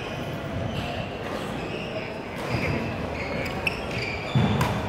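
Badminton rally: rackets sharply striking the shuttlecock and sneakers squeaking on the hardwood gym floor, with a heavier footfall thump near the end as a player lunges.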